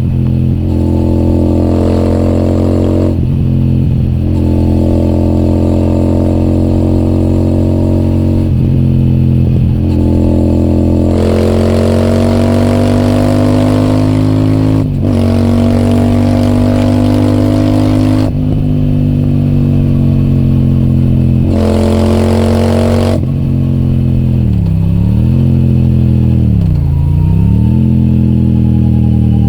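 Royal Enfield Super Meteor 650's parallel-twin engine through an aftermarket AEW TE 202 exhaust, ridden under load with a brief dip in the note at each of several gear changes. Wind rushes on the microphone at times. Near the end the exhaust note falls and rises a few times as the throttle is closed and reopened.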